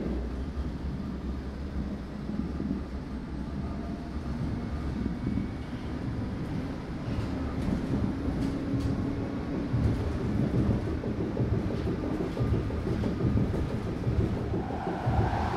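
Underground train running, heard from inside the carriage: a steady low rumble with faint rattles and clicks, growing louder toward the end and swelling up just before the end.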